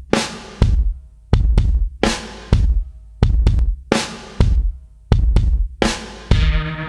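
Background music: a loud drum beat of deep kick and snare-like hits, with sustained bass and other instruments joining near the end.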